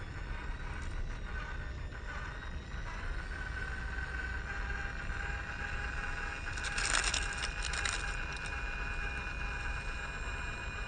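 1/24-scale Kyosho Mini-Z 4x4 RC crawler driving, its Furitek brushless motor and gears giving a thin steady whine over a low rumble. A short cluster of crackling scrapes from the tyres on the gravelly pavement comes about seven seconds in.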